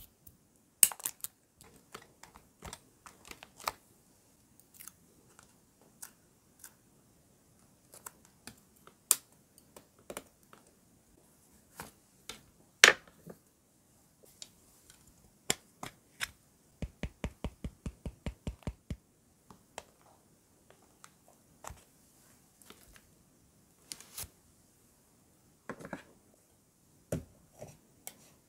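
Scattered small clicks, taps and paper rustles from tweezers and paper stickers being handled and pressed onto a notebook page. Partway through comes a quick run of about ten light taps, and near the end a few more clicks.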